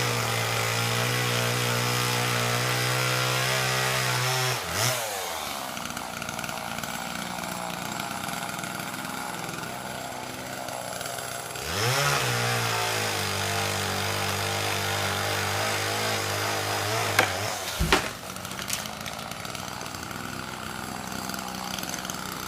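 Chainsaw run at full throttle through a cut for about five seconds, dropping back to idle, then run up and cutting again for about five seconds. A few sharp knocks come near the end, and then it settles back to idle.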